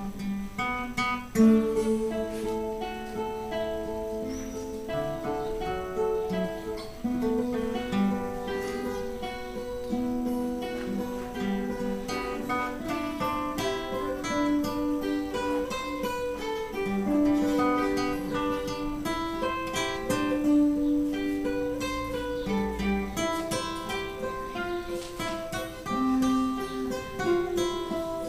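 Acoustic guitar music, picked melody notes over strummed chords.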